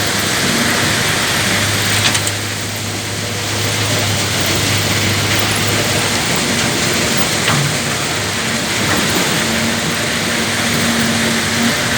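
Heavy diesel earthmoving machinery running steadily, a low engine hum under a constant hiss, with sharp knocks about two seconds in and again about seven and a half seconds in.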